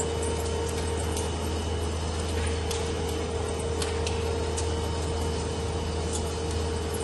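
Compact XK 610 × 1830 mm two-roll rubber mill running with a rubber sheet banded on the roll, its drive motors and gearboxes giving a steady low hum with a steady whine above it. Scattered faint ticks sound over it.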